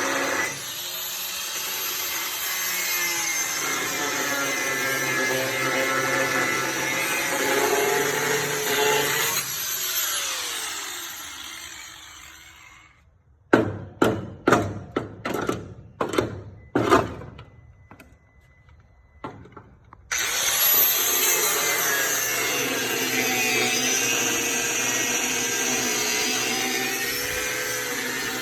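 Power tool cutting metal, running steadily with its pitch wavering under load. It stops about twelve seconds in and is followed by a run of sharp metallic knocks. It starts cutting again about twenty seconds in.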